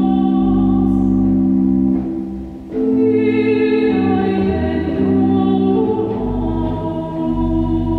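Organ playing sustained chords, with a singer's voice coming in over it about three seconds in, holding long notes.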